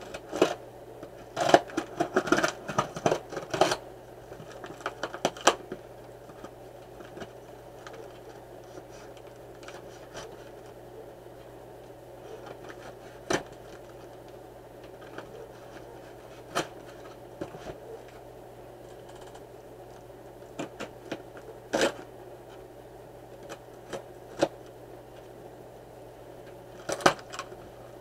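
Scissors cutting and scraping along packing tape on a cardboard shipping box: a quick run of snips and scrapes in the first few seconds, then scattered scratches and taps as the tape and cardboard flaps are pulled open. A low steady hum runs underneath.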